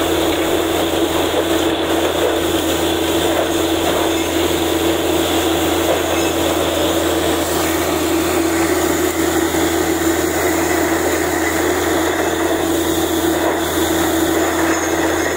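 Truck-mounted borewell drilling rig running steadily while drilling, with rock cuttings and water blasting out of the borehole against a sack cover in a continuous rushing spray over a steady machine drone.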